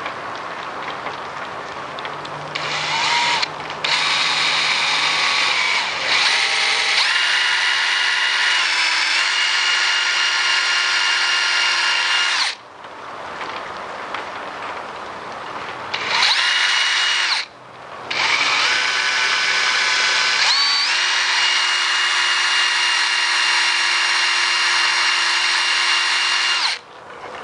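Cordless DeWalt drill boring into the end of a wooden board: a steady motor whine in two long runs of about nine seconds each, each preceded by a short burst, with a pause between them.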